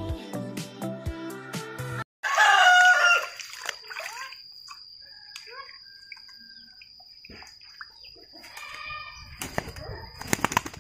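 Background music for about two seconds, then after a cut a rooster crows loudly, the loudest sound here. Quieter scattered calls and a thin steady high tone follow, and near the end a quick flurry of sharp rustling flaps as a wet pigeon held in the hand beats its wings.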